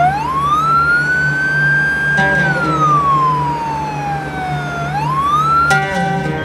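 Ambulance siren wailing: its pitch climbs quickly and holds, sinks slowly for about two and a half seconds, then climbs again near the end. Soft background music plays beneath it.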